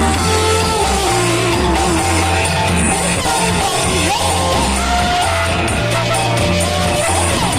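Loud music with a singing voice over heavy bass notes, played through a large sound system being put through a sound check.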